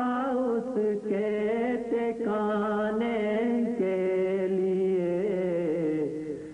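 Devotional song: a voice holding long, wavering sung notes over a steady drone, with no clear words.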